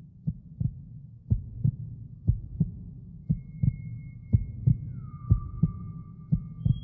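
Heartbeat sound effect: a double thump about once a second over a low rumble. Thin, high, held tones come in about halfway through, one sliding down to a steady pitch near the end.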